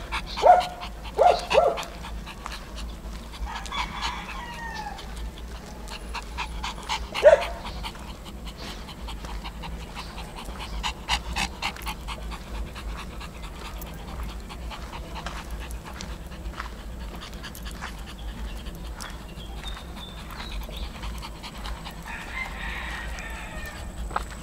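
Dog sounds on a walk: a dog panting, with a few short barks about half a second in, around a second and a half in, and once more about seven seconds in.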